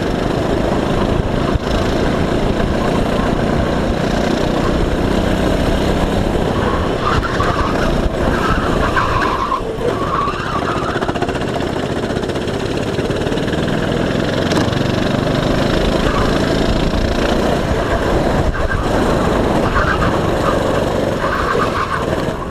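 Go-kart engine running at racing speed, heard from the driver's seat with the steady rush of wind and road noise.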